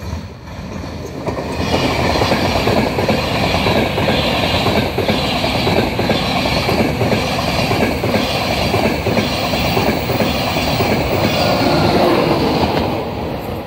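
Virgin Trains East Coast InterCity 225 passing at speed: Mark 4 coaches led by a driving van trailer and pushed by a Class 91 electric locomotive. A loud rush of wheels and air with a regular clatter of wheels on the track builds over the first two seconds and eases off near the end as the locomotive at the rear goes by.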